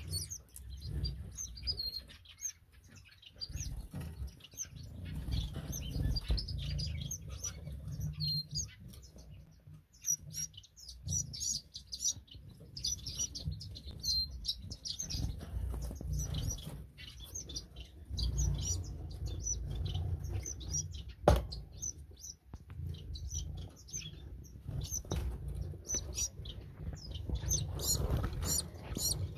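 Small cage finches, star finches and Gouldian finches, chirping and twittering in many short, high calls over a low rumble, with one sharp click about 21 seconds in.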